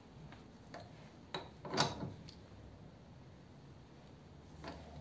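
A few light metal clicks and knocks from a wrench turning the top bolt of a remote by-pass oil filter canister, the loudest a little under two seconds in.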